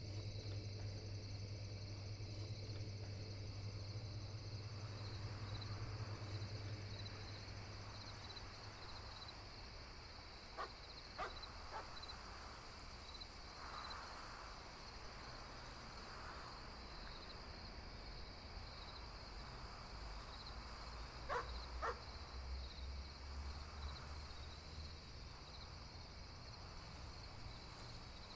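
Night ambience of crickets chirping steadily, with a low hum in the first few seconds and a few sharp clicks, three close together about a third of the way in and two more later.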